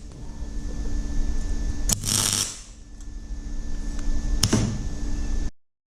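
A VX Commodore's Ecotec V6 idling through straight-piped side exhaust, with a steady low rumble. Two short sharp cracks from the exhaust come about two seconds in and again near four and a half seconds. The sound cuts off suddenly near the end.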